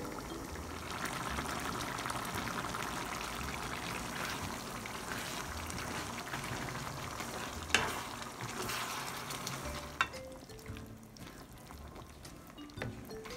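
Pork stew for dinuguan bubbling and sizzling in a nonstick wok at medium heat as it is stirred with a spatula. There are two sharp knocks of the spatula against the pan, at about eight and ten seconds in, and the bubbling is quieter after the second.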